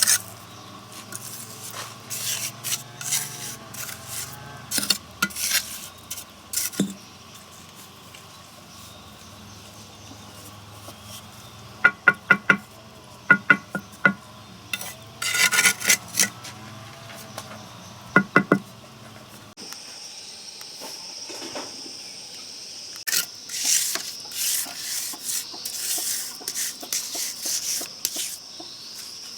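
Metal clinking, knocking and scraping, as of utensils against pots and dishes, in scattered sharp strikes and short rapid clusters. About two-thirds of the way through the background changes abruptly and a steady high insect drone comes in under further clatter.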